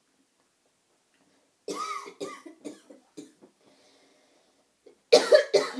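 A woman coughing: a run of short coughs about two seconds in, then two loud coughs near the end.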